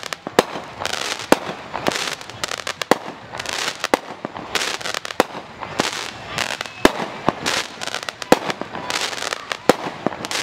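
Aerial firework shells launching and bursting, a steady series of sharp bangs about one or two a second, with a noisy hiss between them.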